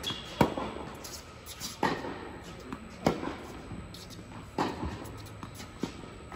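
Tennis ball rally on an indoor hard court: the ball struck by rackets and bouncing off the court, a sharp pop about every second and a half, five in all, echoing in the hall.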